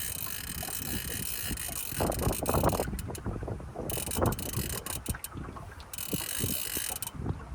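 Fly reel's ratchet clicking rapidly while a hooked salmon is played, with louder spells about two seconds in and again about four seconds in.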